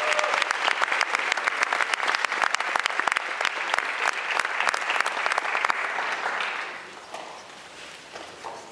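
Audience applauding, a dense patter of clapping that dies away about seven seconds in.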